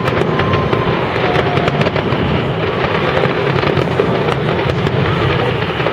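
Fireworks display going off in a dense, continuous barrage, with rapid crackling and bangs that never let up.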